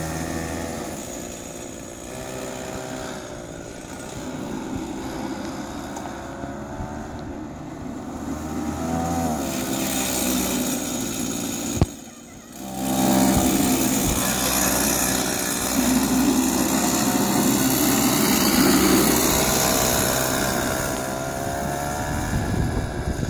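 Small engine of a child's go-kart running, its pitch rising and falling as the kart speeds up and slows around the lot. About halfway through there is a sharp click and a brief drop in level, then the engine comes back louder.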